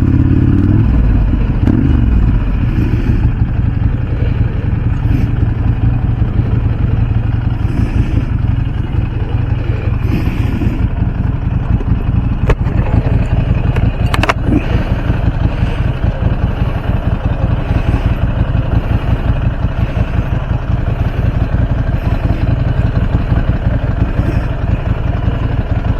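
Ducati V-twin motorcycle engine running steadily under way, its pitch shifting in the first couple of seconds, with two short sharp clicks about halfway through.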